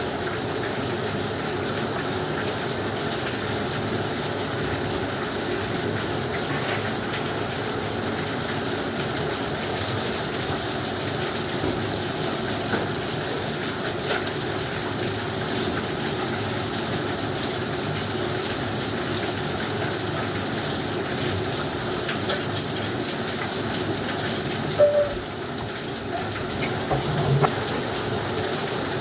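Steady, loud rushing noise that holds level throughout, with a couple of brief louder sounds near the end.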